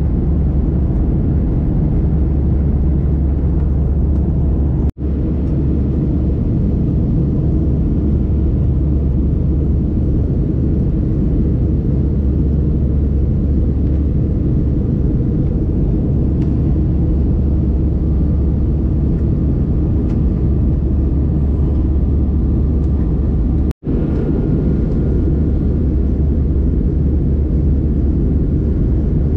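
Steady low rumble of jet engines and rushing air inside a passenger jet's cabin in flight. The sound cuts out sharply for an instant twice, about five seconds in and near the end.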